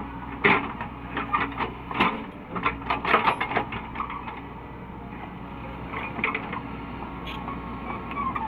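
CAT 307E2 excavator's diesel engine running steadily, with a rapid series of sharp knocks and clanks from about half a second in until nearly four seconds, and a few more around six seconds.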